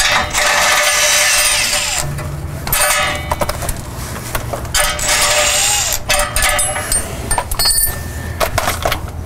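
Cordless impact wrench running in bursts as it spins the nuts off a U-bolt exhaust clamp, the longest burst in the first two seconds, with light metallic clinks of the clamp parts.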